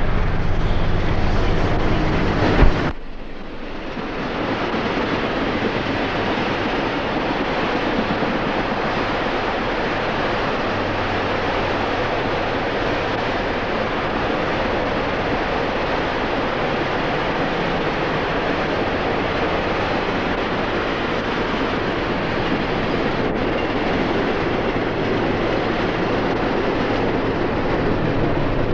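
The passenger cars of the 1976 Freedom Train rolling past at speed, a steady rushing noise of wheels on rail. About three seconds in there is a sharp click and a brief drop in the sound.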